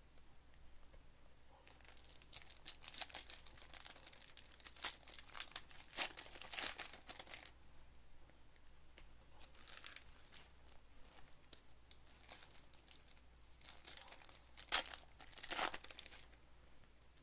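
Plastic trading-card pack wrappers crinkling and tearing as packs are ripped open and handled by hand. The crackle comes in bursts with short quiet gaps, loudest near the end.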